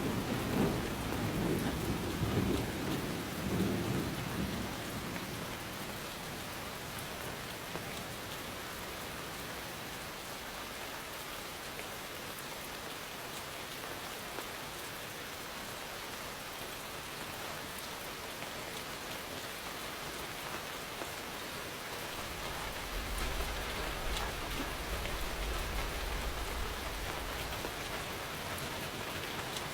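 Steady rain falling, with a low rumble of thunder dying away over the first few seconds. Another low, distant thunder rumble rolls in about 23 seconds in and fades after a few seconds.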